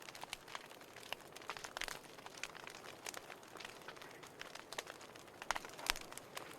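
Fireplace fire crackling: irregular small pops and snaps over a soft hiss, with a couple of louder snaps near the end.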